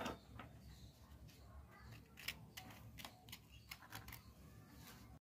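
Near silence with faint, scattered clicks and light scrapes as chocolate cream sandwich biscuits are pulled apart and the cream filling is scraped off with a small knife on a plate. The sound cuts off suddenly near the end.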